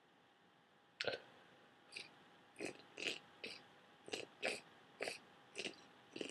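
A person with a heavy, wet cold making short, snotty sniffs through a congested nose: one sharp one about a second in, then a run of quick wet sniffs about two a second.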